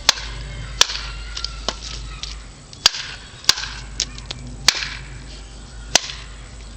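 Machete blade striking wood, about eight sharp chops at uneven intervals, roughly one a second.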